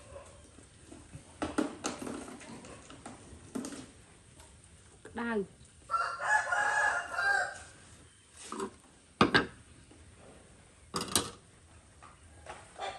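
Sharp clinks and knocks of metal tongs against a steel wok and lid. About six seconds in comes a drawn-out, wavering pitched call.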